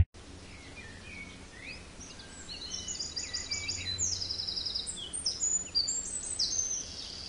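Small birds chirping and trilling, with fast runs of repeated high notes that get busier from about three seconds in.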